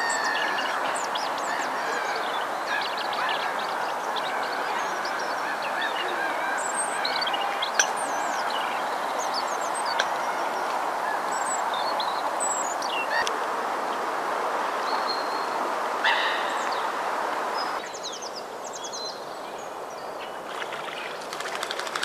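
Small songbirds chirping and calling: many short, high chirps and sweeping notes over a steady background noise, which drops somewhat near the end.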